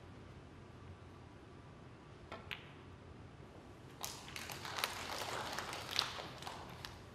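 Snooker cue striking the cue ball, with a sharp click of the cue ball hitting the black a moment later, about two and a half seconds in. From about four seconds, a couple of seconds of louder crackling noise with many scattered clicks.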